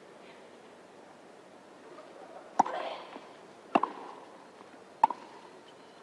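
Tennis ball struck by rackets in a rally: three sharp hits about a second and a quarter apart, over a faint steady crowd murmur.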